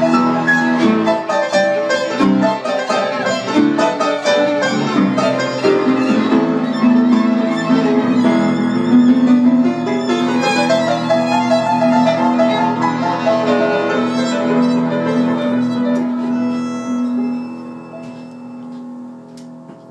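Violin played with a bow over piano accompaniment, in long held notes, growing quieter over the last few seconds.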